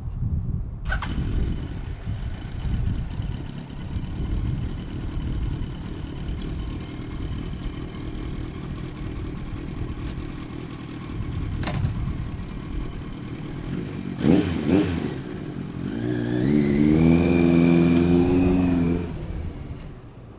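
1981 Kawasaki KZ1000J's 998 cc air-cooled inline-four running while being ridden, with two sharp clicks along the way. Near the end the revs climb and hold loud for about three seconds, then fall away.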